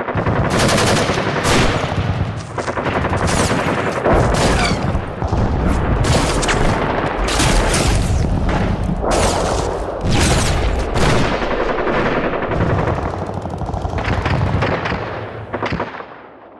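Gunfire sound effect: sustained rapid automatic fire, a dense, almost unbroken stream of shots that dies away near the end.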